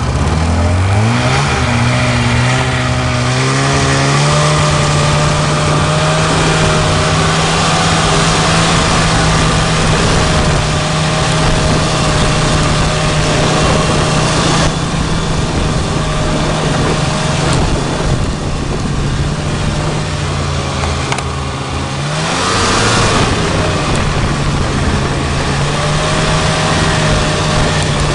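Snowmobile engine accelerating over the first few seconds, then running at a steady cruising speed. About three quarters of the way through it eases off briefly and picks up again.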